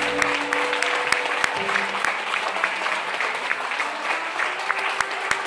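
An audience applauding with separate, distinct handclaps, while the band's last held note dies away within the first second and a half.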